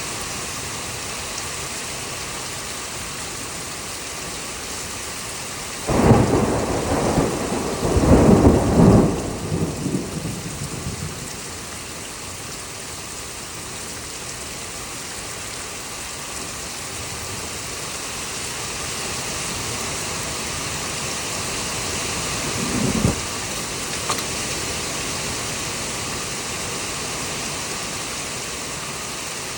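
Thunderstorm: steady heavy rain, broken about six seconds in by a sudden loud thunderclap that rolls on for around five seconds. A shorter, lower thunder boom follows a little past twenty seconds.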